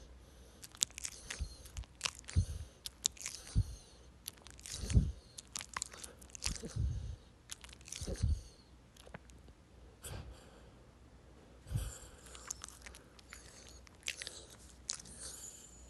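A sleeping dog snoring: irregular low snorts about every one to three seconds, mixed with clusters of wet clicking and smacking noises from its mouth and nose.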